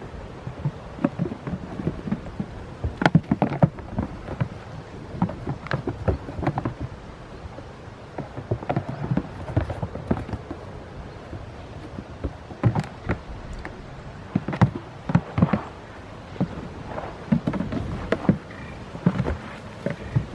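Goat hooves knocking and thudding on hollow black plastic blocks as goats climb and jump on them: irregular knocks and thumps, several in quick runs.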